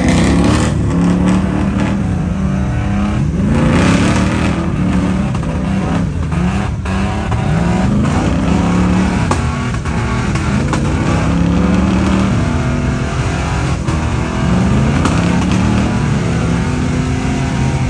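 An off-road 4x4's engine revving up and falling back again and again under heavy throttle as it works through a difficult trail obstacle, with a few short knocks in between.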